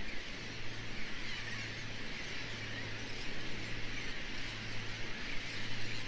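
A distant flock of shorebirds and gulls calling, heard as a steady, faint chatter, over a low steady hum.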